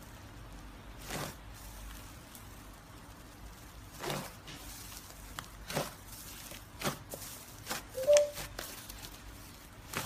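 Hands pressing and squishing thick, fluffy slime in a plastic tub: a string of about six soft, crackly squishes, with a brief squeak a little past the middle.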